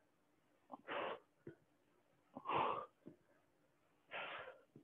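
A man's forceful breaths from the effort of butterfly crunches, three of them about a second and a half apart, each with a short click just before it.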